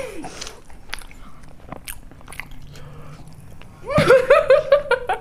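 Boys chewing mouthfuls of puri with wet mouth clicks and smacking. About four seconds in, a boy's voice breaks out in a loud, rapidly pulsing burst.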